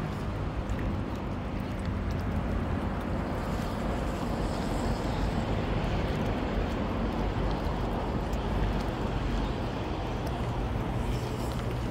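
Steady rushing of wind on the microphone mixed with sea washing against shoreline rocks.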